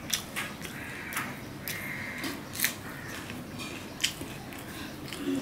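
Fingers mixing and pressing rice on a stainless steel plate: soft sticky squishing broken by several sharp clicks, the loudest about four seconds in.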